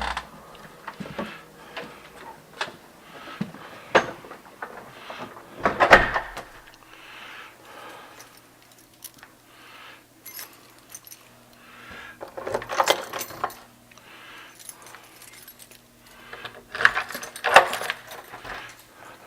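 Handling noise: scattered clicks and several short bursts of jangling rattle, the loudest near 6 s, 13 s and 17 s.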